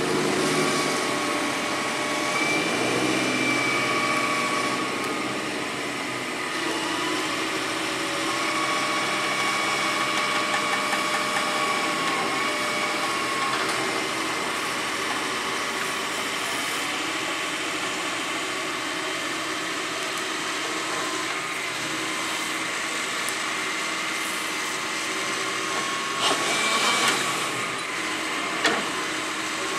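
Hydraulic excavator's diesel engine running steadily under a wavering hydraulic whine as the arm and bucket work. A brief louder burst and a sharp knock near the end.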